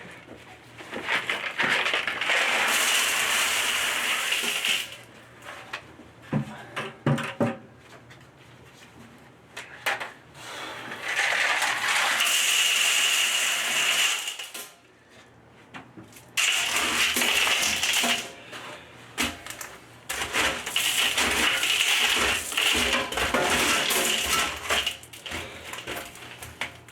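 Gravel being poured around a French-drain barrel in four pours of a few seconds each, the stones rushing and rattling, with a few knocks in the pauses between pours.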